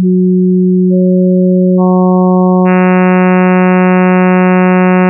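A synthesized tone, a low steady sine wave approximating a sawtooth wave. Sine overtones are added in steps about a second apart, building it from a pure hum to a bright, buzzy sawtooth-like sound with fifteen components.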